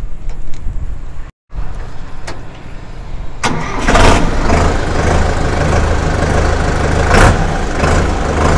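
Sonalika Sikander DI-55 tractor's 4087 cc four-cylinder naturally aspirated diesel engine starting about three and a half seconds in, then settling into a steady idle.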